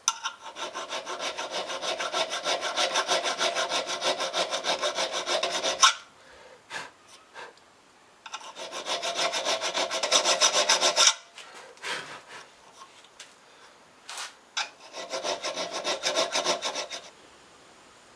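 Fast back-and-forth rubbing strokes of hand abrasion on the knife, about seven strokes a second. They come in three bouts: a long one of about six seconds, then one of about three seconds, then one of about two, with a few single scrapes between them.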